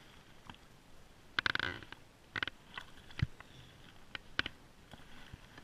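A few sharp knocks and short scrapes close to the microphone, with a low thump about three seconds in, from a fishing rod and camera being handled in a small boat.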